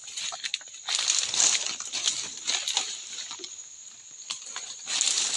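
Rustling and crackling of dry grass, stems and leaves as a person pushes through dense undergrowth on foot, in irregular bursts.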